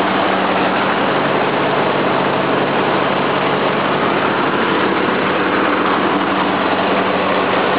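Old tractor engine running steadily at idle, heard close up at the engine.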